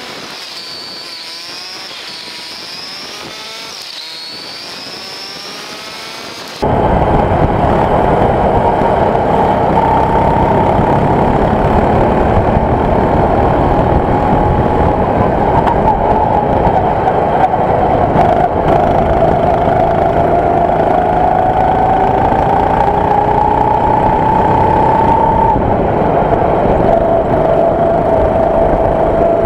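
Go-kart engine heard from on board, at first quieter, its pitch rising and falling quickly as it revs up and down. About seven seconds in it suddenly becomes much louder and steadier, its pitch climbing slowly, dropping once near the end and climbing again.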